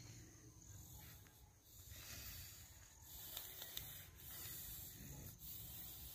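Faint breathy hiss of air being blown by mouth into a long latex balloon as it inflates, with a few small clicks about midway.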